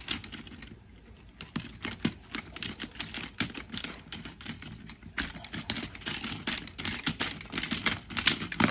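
Small hard plastic LEGO pieces clicking and rattling as the tower of a LEGO Super Mario set is handled and wobbled, an irregular run of quick clicks like typing.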